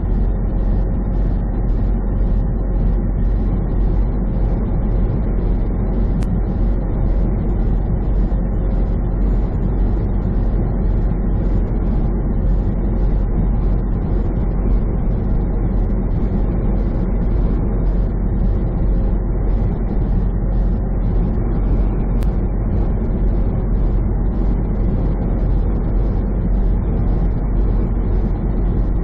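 Semi truck cruising at highway speed, heard from inside the cab: a steady low drone of engine and road noise that does not change.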